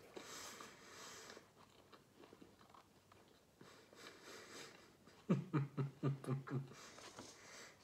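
Mouth noises of a man chewing a mouthful of calzone, then a short run of about five chuckles a little past halfway.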